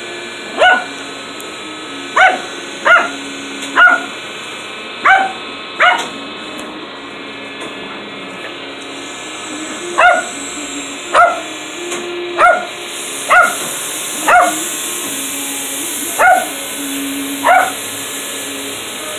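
A small dog barking repeatedly in short, sharp, high barks, about a dozen of them in two runs with a pause of a few seconds in the middle. Under the later barks the steady whir of a toy RC helicopter's motor and rotor runs.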